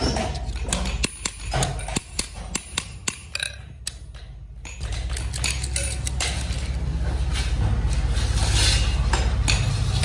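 Hand hammer striking padlock parts on a steel block: a string of sharp metallic taps, about three a second, for the first three seconds. After a short lull, a steady low hum with some hiss takes over.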